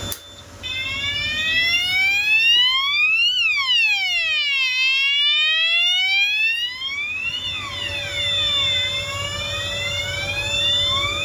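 Fire alarm hooter sounding an electronic wail, its pitch sweeping slowly up and down over a few seconds per sweep. It starts about half a second in after a brief quiet moment, with a steady high tone alongside.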